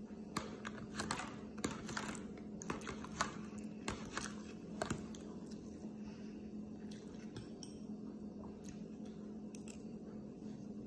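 Metal spoon and fork clinking and scraping against a ceramic bowl while eating, a quick run of sharp clicks over the first few seconds and only a few after that, over a steady low hum.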